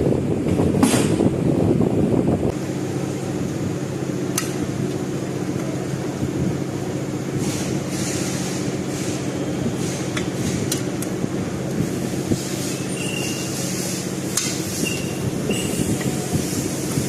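A steady mechanical hum, with sharp metal clinks now and then and short high squeals near the end.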